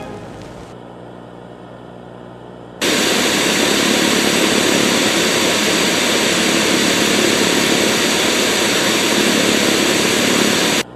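A faint low hum, then about three seconds in a loud, even hiss of TV static starts suddenly. It holds steady for about eight seconds and cuts off abruptly: the dead-air noise left when the broadcast signal is gone.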